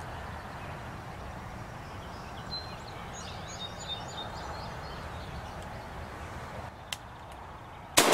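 Steady low outdoor background with a few faint bird chirps in the middle, a single sharp click about seven seconds in, then a loud shotgun shot right at the end, fired at a bearded hen turkey.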